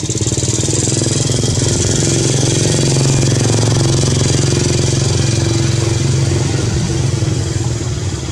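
A motorcycle engine running close by, with a low, rapidly pulsing hum that swells in the first second, holds, and eases off slightly near the end, like a bike passing.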